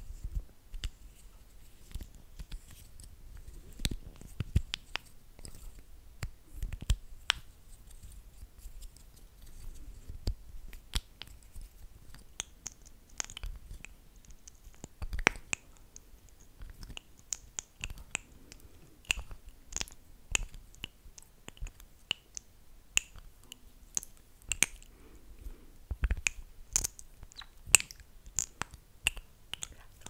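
Close-miked wet mouth sounds: lips smacking and clicking while sticky with lip gloss. The clicks come irregularly, often several a second, and grow sharper and more frequent about halfway through.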